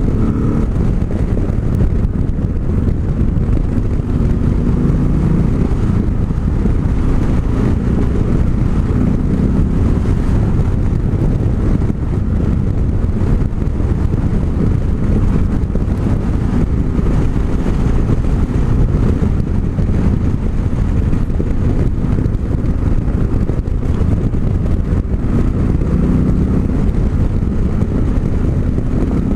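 Yamaha XT 660 Z Ténéré's single-cylinder engine running steadily while riding, under a heavy low rumble of wind and road noise on the microphone; the engine's pitch rises and falls a little.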